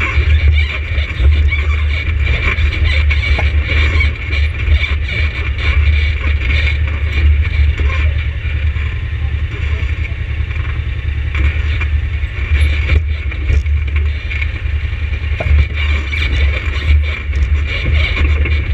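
ATV engine running steadily with a low drone, with frequent knocks and rattles over it.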